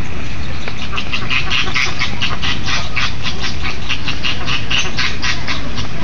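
Flamingos in a flock calling, a fast run of short honking calls, about four or five a second, starting about a second in, over a steady low rumble.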